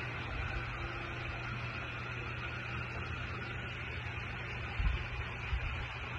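Steady low machine hum under an even hiss, with a couple of brief low bumps about five seconds in.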